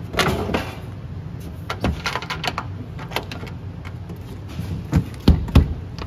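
Trailer's slide-out outdoor kitchen tray being pushed back into its compartment on metal drawer slides, with a short sliding rattle at the start and a few latch clicks. Three sharp thumps near the end as the compartment door is shut and latched.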